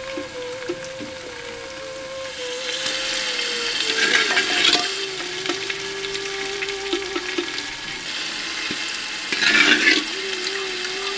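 Pieces of cooked mutton being ladled into hot oil and onion-tomato masala in a metal pot, frying with a steady hiss. There are two louder bursts of sizzling as the meat goes in, about four seconds in and again near the end.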